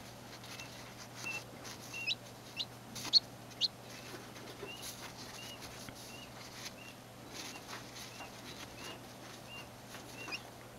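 Newly hatched chick peeping while held for foot surgery: short high peeps about once a second, with several louder, sharply rising peeps in the first few seconds, the distress calls of a chick that doesn't like being handled.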